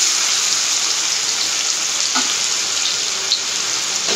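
Ginger-garlic paste and green chillies frying in hot oil in a wok: a steady sizzle, with a few faint clicks.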